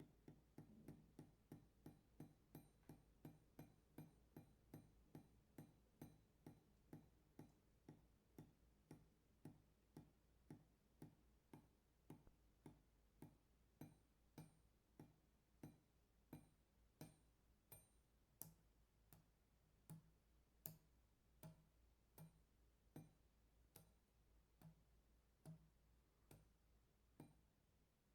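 Faint water drops falling one at a time onto metal, each a sharp tick with a short metallic ring, about two or three a second at first and slowing to about one a second.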